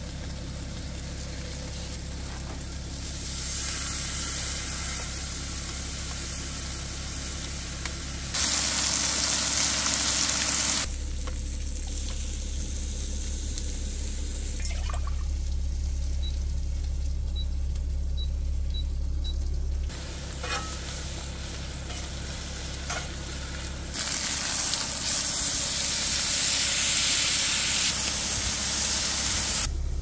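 Food sizzling as it fries, in several stretches that start and stop abruptly, over a steady low hum of the van's engine idling. About halfway through come four short, high beeps.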